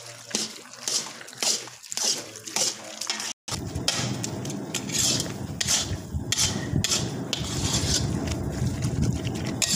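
A metal spatula scraping and stirring thick maida halwa around a steel karahi, in repeated strokes about every half second. After a sudden cut about a third of the way in, a steady low rumble runs under the scraping.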